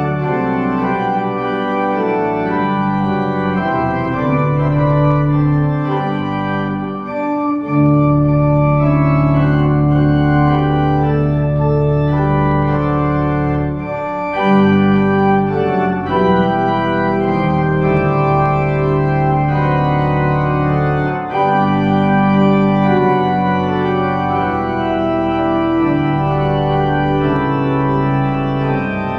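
Church organ playing a slow piece in sustained chords, with long held bass notes that change every few seconds.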